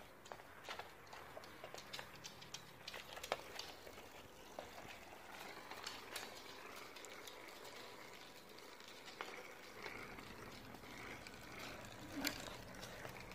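Faint, scattered clicks and taps of puppy play with small toys on a wooden floor, with a slightly louder knock near the end.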